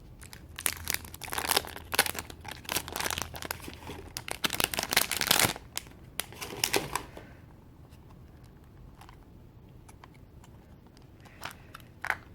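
Packaging crinkling and tearing as a stamp set is unwrapped, for about seven seconds; then a few faint clicks.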